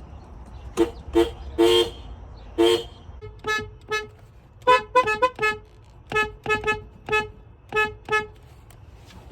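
Nissan car horns sounded in a run of about sixteen short toots, some in quick double and triple taps. The first few have two notes sounding together; from about three seconds in, the horn has a single, brighter note.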